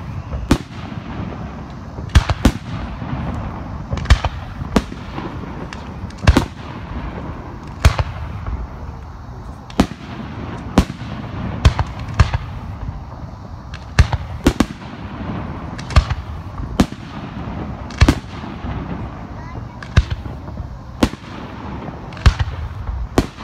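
Aerial fireworks shells bursting overhead at close range: sharp bangs about one a second over a steady low rumble.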